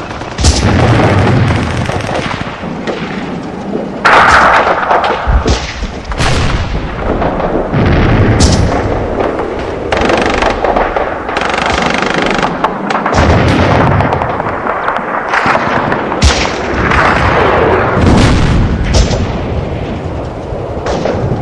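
Battle sound effects: loud, dense gunfire with machine-gun bursts and repeated booming explosions.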